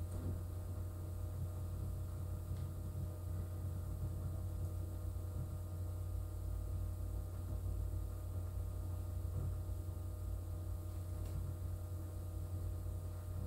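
Steady low electrical hum with a few faint steady tones above it, unchanging throughout: mains-type hum in the recording's background.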